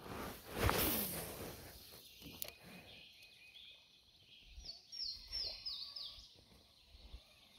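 A rush of air and line as a baitcasting rod is cast, loudest about a second in, then a little rustle of handling. About five seconds in, a small bird gives a quick run of five high chirps, each falling in pitch.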